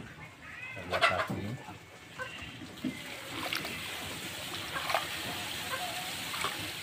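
Water poured by hand trickling and splashing over a rooster's wet tail feathers during rinsing, steady from about three seconds in. About a second in, a chicken gives a short call.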